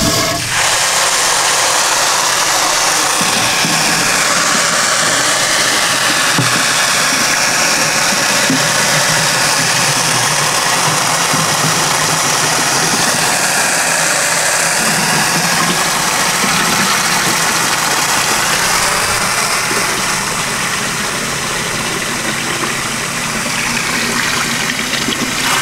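Water from a garden hose pouring steadily into the plastic tank of a 2-gallon backpack sprayer, filling it.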